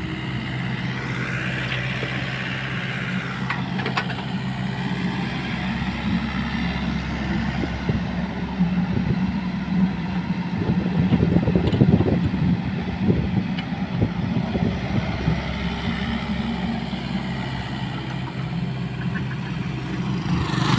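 Kobelco mini excavator's diesel engine running steadily while the machine digs, with a fainter higher whine that rises and falls; it gets louder for a few seconds about halfway through.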